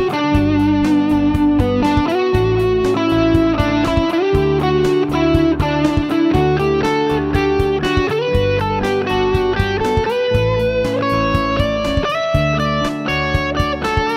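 Electric guitar playing over a bass and drum backing track at a steady tempo, with drum strokes about four a second, through a I–IV–V–I chord progression.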